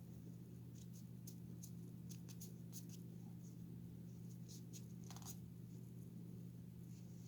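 Faint scattered scratching and light clicks from hand-scrubbing a small plastic toy figure, over a steady low hum.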